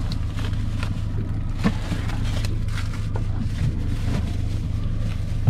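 Boat engine idling with a steady low hum, with a few light knocks and clicks scattered over it.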